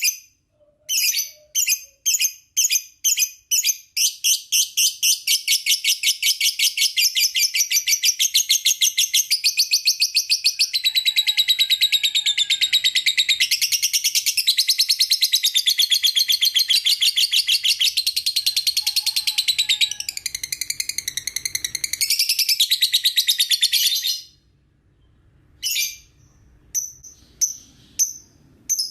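Lovebird chirping: a few separate chirps, then from about four seconds in a long, fast, unbroken chattering trill, the kind keepers call 'ngekek', that runs for about twenty seconds and stops abruptly, followed by scattered single chirps.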